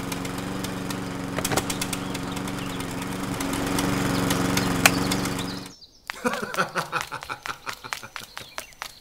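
A small engine runs with a steady, even hum, driving a belt-driven crusher, and it cuts off suddenly about six seconds in. After it comes a fast run of light ticks with birds chirping.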